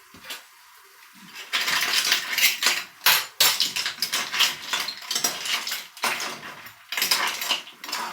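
A utensil clattering and scraping against cookware while food is stirred and mixed, in quick irregular strokes that start about a second and a half in.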